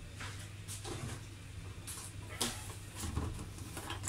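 A few scattered light clicks and knocks of household items being handled, over a steady low hum.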